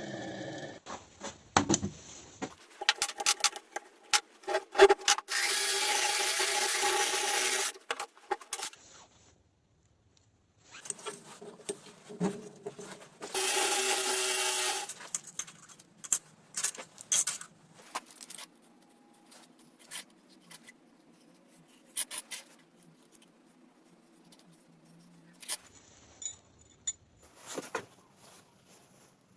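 Workshop work on metal tool parts: scattered clicks, knocks and scraping, broken twice by a power tool running for a few seconds, first for about four to five seconds and later for about two.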